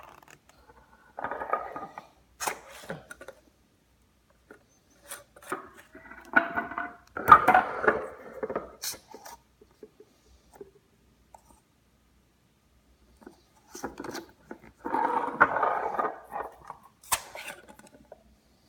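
Bottles of second-ferment kombucha being burped: three rushes of pressurised carbonation gas escaping, each a second or two long, with sharp clicks between them as the bottles are opened and handled.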